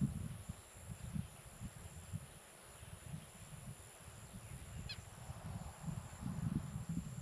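Wind gusting on the microphone over a steady, high-pitched insect chorus, with a short bird call about five seconds in.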